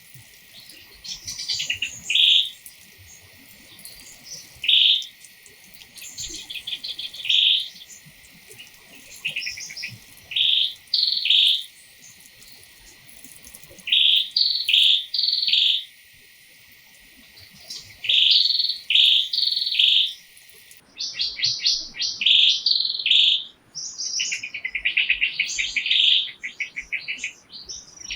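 Birds chirping: short high-pitched calls, mostly in twos and threes, every couple of seconds, with a faster run of rapid notes near the end.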